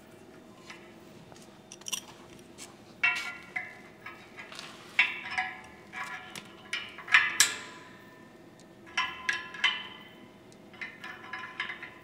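Irregular metallic clinks and knocks from hard parts being handled, some ringing briefly, coming in clusters with the loudest about seven seconds in.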